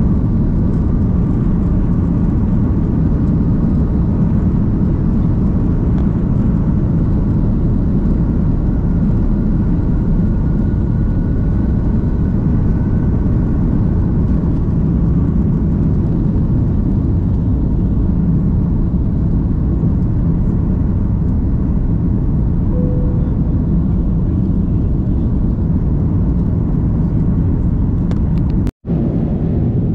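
Jet airliner at takeoff heard from inside the cabin: a loud, steady engine rumble through the takeoff roll and lift-off, with a faint whine rising a little in pitch in the first half. The sound cuts out for a moment near the end.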